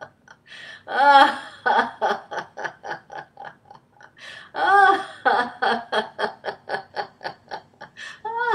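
A woman laughing on purpose, laughter-yoga style, in two long bouts. Each bout opens with a loud rising 'ha' and runs into rapid 'ha-ha-ha' pulses, about five a second, with a brief pause between the bouts.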